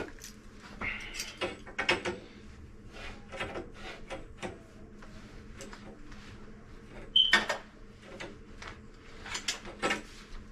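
Hand tools and metal plumbing fittings being handled on a tub faucet: scattered clicks, knocks and scrapes, with a louder clatter about seven seconds in.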